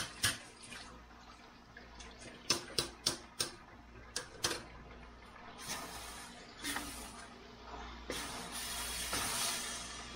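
Kitchen work at a wok of bean sprouts and vegetables: a string of sharp knocks and clinks of a wooden spatula and utensils, then a steady hiss near the end while the vegetables are stirred.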